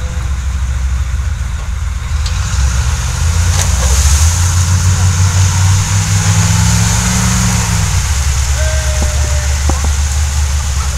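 Humvee V8 diesel engines working under load during a tow recovery out of deep mud and water. The engine note rises from about three seconds in, holds, then drops back near eight seconds.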